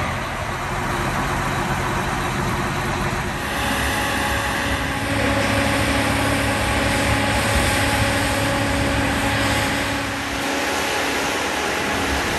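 Biodiesel cog-railway locomotive's diesel engine running steadily.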